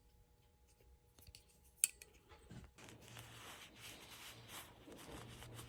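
Faint handling of a folding utility knife: a few sharp clicks, the loudest about two seconds in, then soft rubbing and shuffling from about three seconds on.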